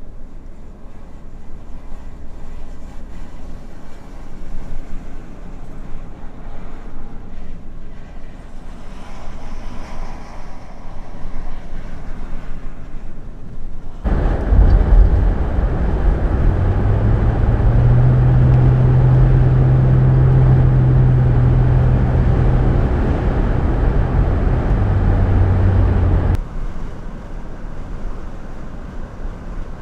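Gusty wind noise on the microphone. About halfway through, a sudden switch to the louder, steady rumble of a vehicle driving on the highway, its low engine hum stepping up in pitch and later dropping back. This cuts off abruptly near the end and the wind noise returns.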